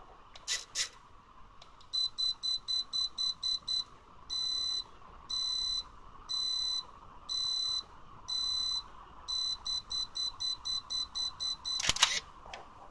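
Kyocera Samurai Z2 film camera's self-timer beeping a countdown after two small clicks: high beeps, quick at first, then slower and longer about once a second, then quick again. About ten seconds after the beeping starts, the shutter fires with a loud click.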